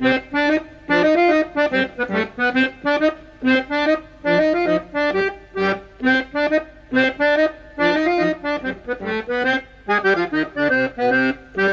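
Concertina playing a lively tune in short, separate chords, several a second, with brief pauses between phrases.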